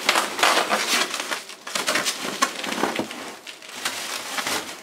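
Plastic bubble wrap rustling and crinkling as it is handled and pulled out of a cardboard box, in an irregular run of crackles with short clicks.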